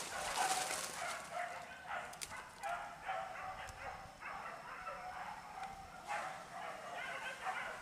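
Pack of boar-hunting dogs barking and yelping in quick, overlapping calls.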